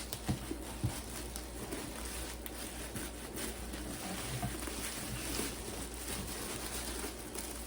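Rustling and light knocks of packaging being handled as a shoebox is opened.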